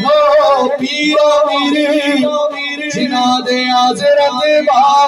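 A man singing a naat, a devotional poem in praise of the Prophet, through a microphone and loudspeakers, in long ornamented phrases over a steady low drone.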